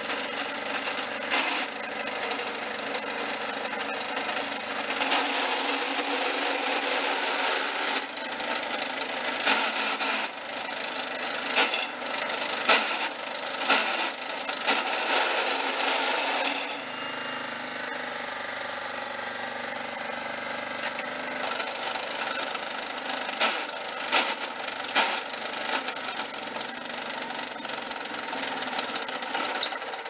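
John Deere STX30 riding mower running while being driven, with a clattering knock from its drivetrain, the sound of a bad transmission. Irregular sharp knocks sound over the engine, and a thin high whine comes and goes.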